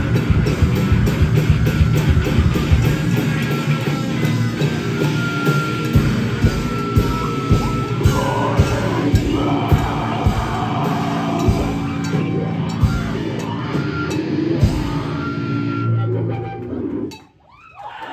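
Live heavy metal band playing: distorted electric guitars, bass and drum kit, loud and dense, then the song stops abruptly near the end.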